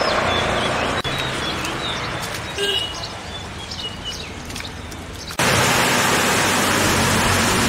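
Birds chirping now and then over a steady hiss of outdoor air, then an abrupt change to the loud, steady rush of a small waterfall pouring down a roadside rock face.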